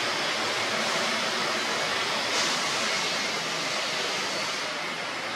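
Steady, even rushing noise with no distinct events, swelling briefly into a brighter hiss about two and a half seconds in.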